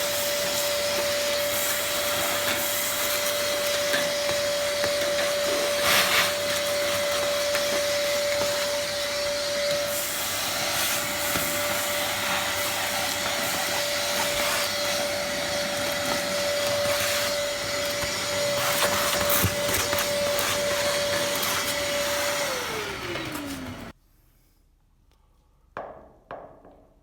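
Vacuum cleaner running with a steady motor whine and rushing air, then switched off about 22 seconds in, its motor winding down in pitch. A few light knocks follow near the end.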